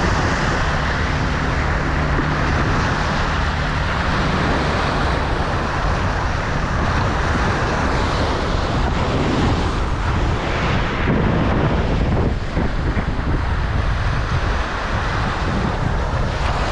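Sea waves washing and breaking, with wind buffeting the microphone. A low steady hum runs under it for the first few seconds.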